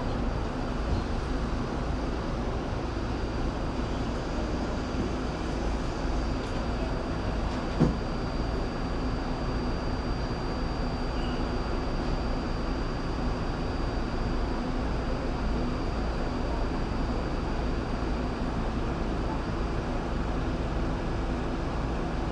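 New York City subway R68 train running steadily with an even rumble, broken by one sharp knock about eight seconds in.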